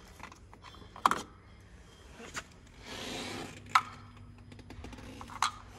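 Handling noises from unplugging and removing a service tool: four sharp clicks spread out, with a short rubbing scrape about three seconds in.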